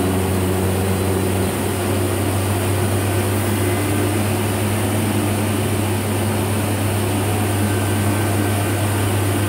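Hurco TM6 CNC turning center's spindle running steadily at its maximum 6000 RPM, a constant machine hum.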